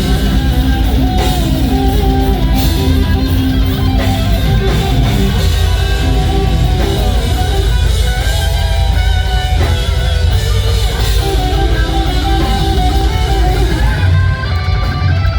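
A rock band playing loud, guitar-heavy music over drums, with the bass dropping away briefly near the end.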